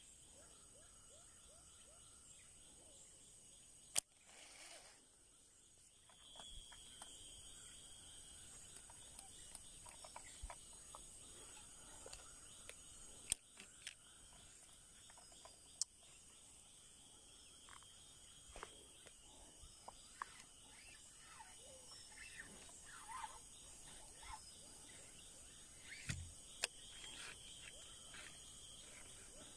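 Faint outdoor ambience of steady insect buzzing with scattered bird chirps, broken by a handful of sharp clicks; the first, about four seconds in, is followed by a brief swish.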